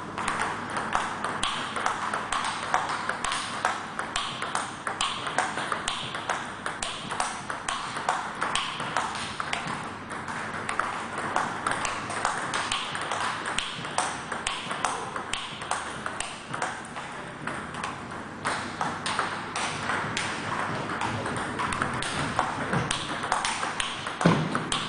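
Table tennis rally: the ball clicking sharply off the bats and bouncing on the table in a steady, quick rhythm of about two to three clicks a second.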